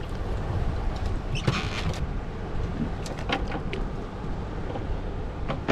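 Steady low rumble of a small fishing boat at sea, with several short sharp clicks and knocks from handling the rod and catch, the busiest cluster about one and a half seconds in.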